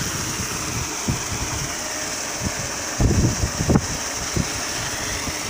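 FUTI 2 HP paddle-wheel aerator running, its electric motor and gearbox humming steadily while the paddle wheel churns and splashes the pond water into a hissing spray. Irregular low rumbles of wind on the microphone, strongest about three seconds in.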